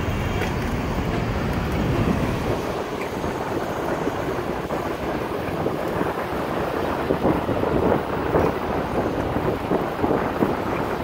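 Wind rushing and buffeting over the microphone of a camera carried on a moving bicycle, mixed with road and traffic noise. It is steady, with rougher gusts later on.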